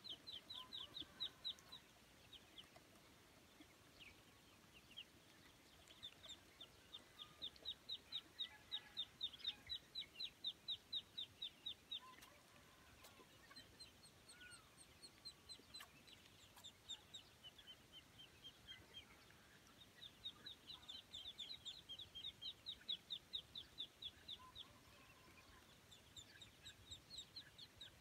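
Ducklings peeping: fast runs of high, even peeps, about seven a second, each run lasting several seconds with short pauses between.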